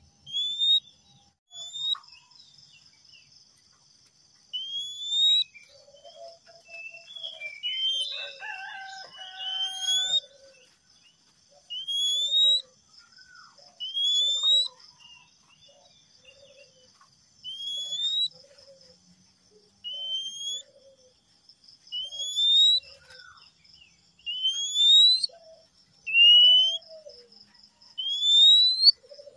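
Male Oriental magpie-robin whistling a loud, rising note over and over, about every two seconds, with a short jumble of varied notes near the middle. A steady high pulsing drone runs underneath.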